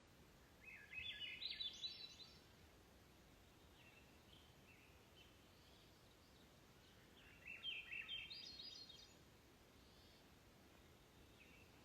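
A small songbird singing twice, each song a quick run of high notes climbing in steps and lasting about a second and a half, with fainter chirps in between over a faint hiss.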